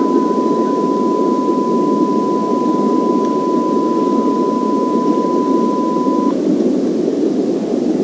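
A single steady electronic tone held over a loud, dense rushing noise; the tone cuts off suddenly about six seconds in while the rushing noise runs on unchanged.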